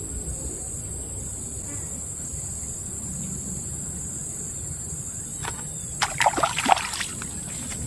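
A steady high-pitched insect drone over low outdoor background noise. About six seconds in, a sudden burst of water splashing lasts about a second.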